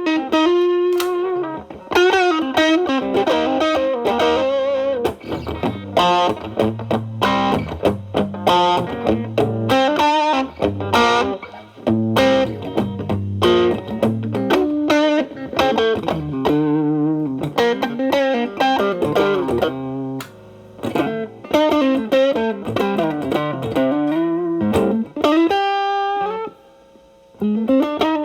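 Telecaster with alnico single-coil pickups played through an MXR Distortion+ stacked with a Boss SD-1 into a Marshall Valvestate's clean channel, on a cleaned-up, lightly distorted setting. It plays improvised blues-style licks with string bends, with a brief pause near the end.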